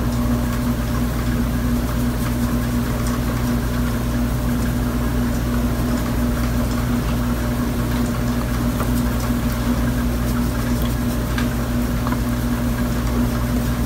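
A steady mechanical hum with one constant tone over a low drone, unchanging throughout, with a couple of faint clicks.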